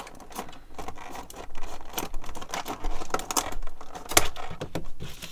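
Stiff clear plastic clamshell blister package of a diecast two-pack being handled and worked open by hand: irregular crackles, clicks and scrapes of the plastic, with a few sharper snaps about two, three and four seconds in.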